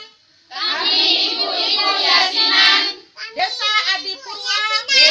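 A group of women's voices in unison, chanting a declaration together. It starts about half a second in, breaks briefly near the middle, and resumes.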